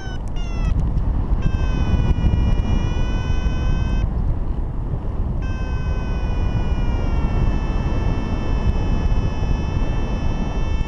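Paragliding variometer: a few short beeps falling in pitch right at the start, then a steady electronic tone that drops out for about a second in the middle and slowly falls in pitch, the vario's sink tone telling the pilot the glider is descending. Heavy wind rush on the microphone throughout.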